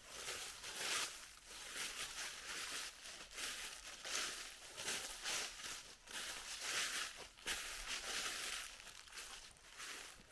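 Footsteps crunching on a hiking trail, a series of short crunchy steps coming about one to two a second at a walking pace.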